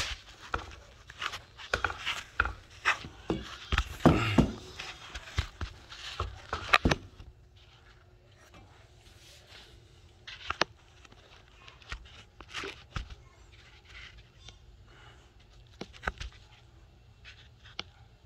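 Handling noise: irregular clicks and knocks, frequent and fairly loud for the first seven seconds or so, then only occasional faint ones.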